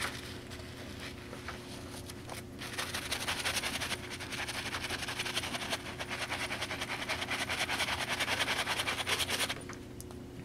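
Shoe-cleaning brush scrubbing the sudsy heel of a sneaker in rapid back-and-forth strokes, with a short pause about two and a half seconds in; the scrubbing stops just before the end.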